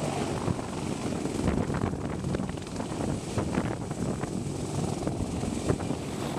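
CH-53E Super Stallion helicopter hovering low overhead, a steady heavy rotor and turbine din. Gusts of rotor downwash buffet the microphone.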